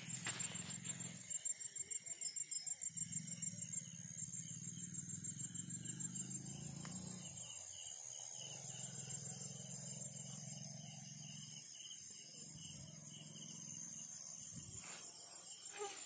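Night insects such as crickets chirring steadily in high, fast-pulsing trills. Under them a low pulsing rumble comes and goes in stretches of a few seconds.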